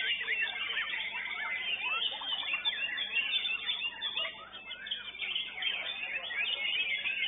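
White-rumped shamas (murai batu) singing in competition, several at once: a dense, continuous tangle of overlapping whistles, trills and quick rising and falling notes.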